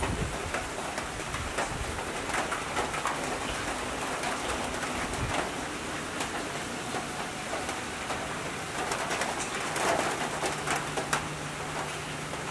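Steady rain falling on leaves, clay pots and wet paving, with many separate drops ticking and dripping, and a bird calling in the background.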